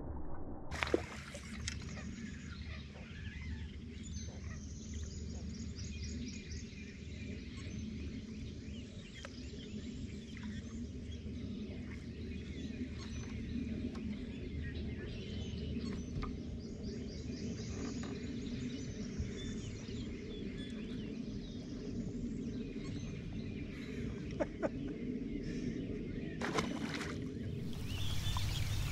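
Outdoor ambience on open water: a steady low background with faint bird chirps and a few scattered clicks. Near the end a louder hissing sound sets in.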